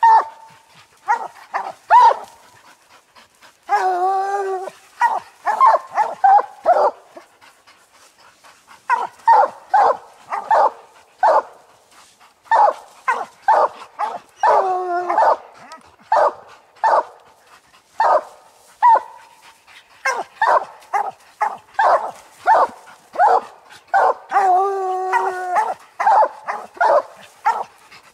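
Coonhounds barking treed at the base of a tree: a run of short chop barks, one or two a second, with a few longer drawn-out bawls mixed in. This is tree barking, the sign that the dogs have a raccoon up the tree.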